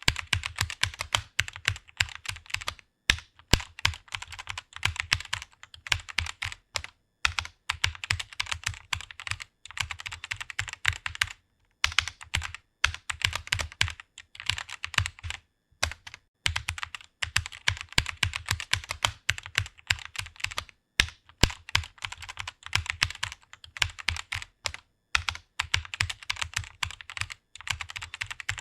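Typing on a computer keyboard: rapid runs of keystroke clicks, broken every few seconds by brief pauses.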